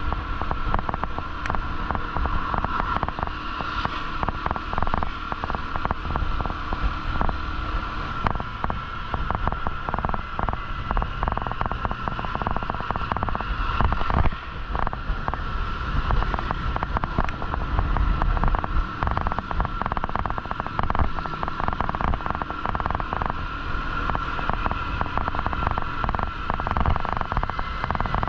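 Riding a motorcycle: wind rushing and buffeting on the microphone in gusts, over a steady low rumble of engine and road noise.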